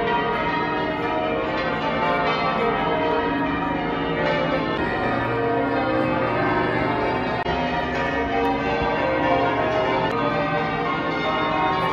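Church bells of St Paul's Cathedral ringing on and on, several bell tones overlapping continuously.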